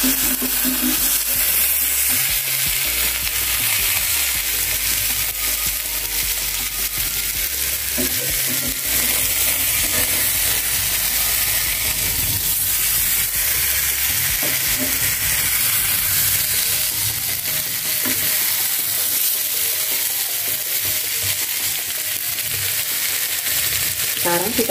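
Two whole fish sizzling steadily as they fry in a hot nonstick Teflon pan, with a few light scrapes and taps of metal tongs and spatula against the pan as they are turned.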